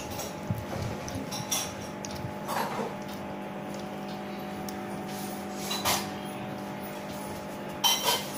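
Aquarium air pump driving a sponge filter, humming steadily. A few brief clinks and knocks come around three and six seconds in and again near the end.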